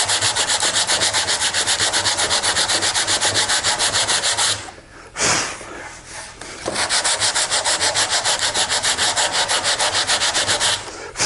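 Coarse 36-grit sandpaper on a flat aluminum sanding block, hand-sanding the top off a mound of hardened Bondo body filler on wood. The back-and-forth strokes are rapid, about five a second. A little under halfway through they stop for a couple of seconds while the dust is swept off by hand with one brief brushing swipe, then the sanding resumes and stops near the end.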